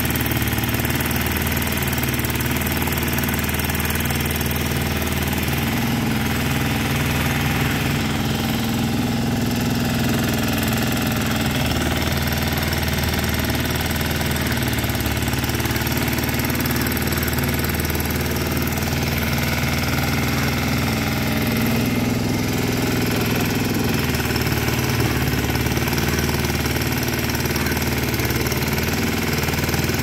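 Engine of a small movable backhoe running steadily while its digging arm works a trench, the note shifting slightly a couple of times.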